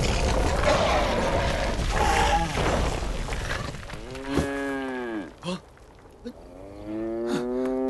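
An ox moos twice: two long, low calls in the second half, each falling in pitch at its end. Before them comes a loud, rough noise.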